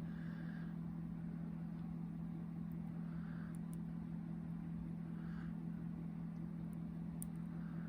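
A steady low hum, with a few faint sharp ticks of a lock pick working the pins of a Viro padlock.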